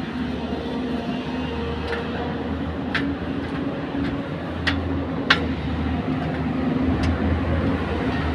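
Steady low machinery hum on a construction site, with four sharp metallic clanks spaced irregularly through the middle of it.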